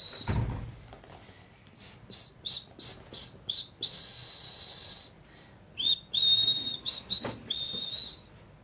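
High whistled chirps, first a quick run of six short ones, then a longer held note about four seconds in, then a few more short and held notes, whistled to catch a puppy's attention. A low thump of handling comes at the very start.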